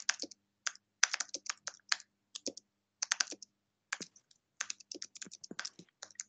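Typing on a computer keyboard: quick runs of keystrokes broken by short pauses, as a sentence is typed out.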